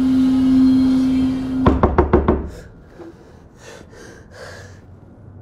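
Knocking on a wooden door: a quick run of about five sharp knocks a little under two seconds in. A steady low drone cuts off as the knocking starts.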